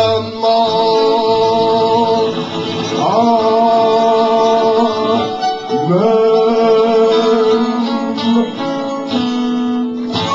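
Live folk-punk band playing: strummed acoustic guitar under long held sung notes that slide up into each new note.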